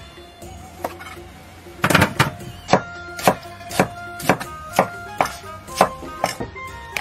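A broad cleaver chopping ginger and garlic on a thick round wooden chopping block, with sharp knocks about twice a second starting about two seconds in. Background music plays throughout.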